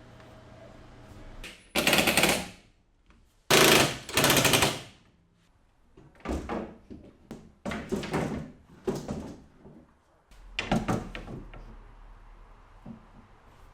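Cordless impact driver driving screws into wood: three loud bursts of rapid hammering, each under a second, in the first five seconds, then shorter, quieter bursts and a few knocks.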